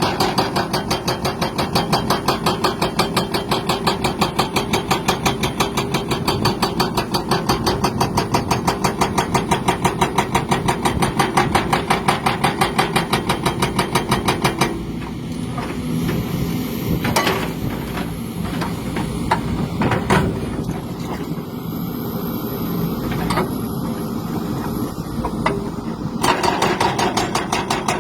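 Engine running with a rhythmic 'tot tot tot' knock, about four beats a second, the sign of a mechanical fault whose cause is being asked. For about eleven seconds past the middle the beat gives way to a steadier noise with a few sharp clicks, then it returns near the end.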